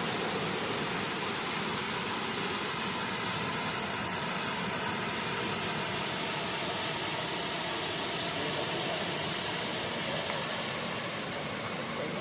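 Waterfall rushing steadily, heard up close: a dense, even hiss of falling water.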